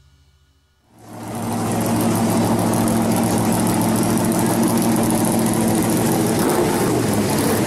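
V8-swapped Chevrolet Vega pro street car's engine idling steadily; it comes in about a second in, after the last of some music dies away.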